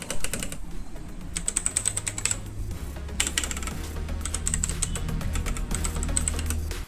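Full-size mechanical keyboard with Outemu Red linear switches being typed on in a sound test: a dense, irregular run of key clacks. Background music with a steady bass runs underneath.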